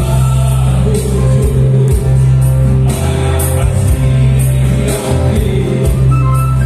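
Male vocal group singing together through microphones, backed by a live band with a strong bass line and cymbal strokes keeping the beat.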